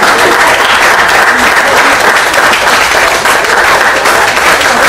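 Congregation applauding: dense, steady clapping from many hands.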